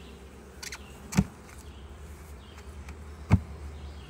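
Honeybees buzzing around the hives, broken by two sharp knocks about two seconds apart.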